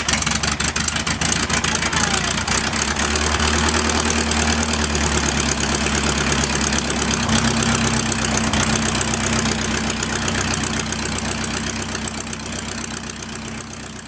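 A de Havilland Tiger Moth's four-cylinder Gipsy Major engine idling steadily just after being started by hand-swinging the propeller. Its pitch steps up slightly about halfway through, and the sound fades near the end.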